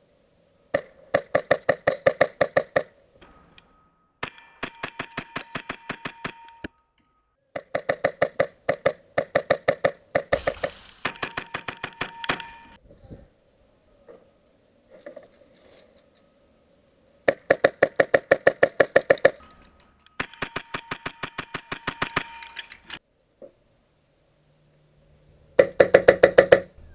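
Airsoft guns firing on full auto: several bursts of rapid, evenly spaced shots, each lasting about one to three seconds, with short pauses between.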